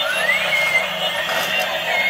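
Several battery-powered light-up toy trains playing their electronic tunes and sound effects at the same time, a jumble of overlapping beeping melodies with a rising tone in the first half second.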